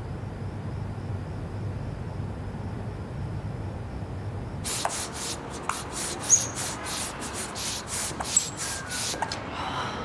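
A hand balloon pump worked in quick strokes, about three or four a second, for some four and a half seconds from about halfway in, with a couple of short high squeaks among the strokes. Before that there is only a low steady hum.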